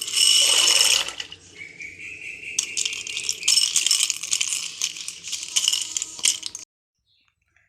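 Dry pasta rattling as it is poured into a pot of boiling water. It is loudest in the first second, then goes on as quieter scattered rattles, and it cuts off abruptly about a second before the end.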